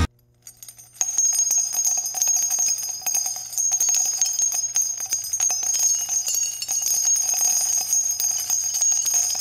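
Jingle bells shaking steadily with a high, bright ringing shimmer over them, starting about a second in, as part of added intro music.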